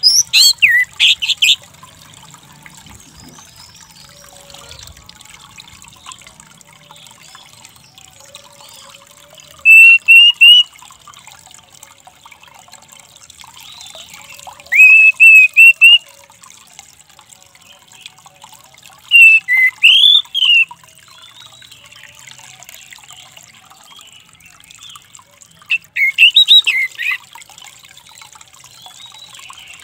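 Orange-headed thrush (anis merah) calling in five short bursts, several seconds apart, each about a second of quick whistled notes that rise and fall.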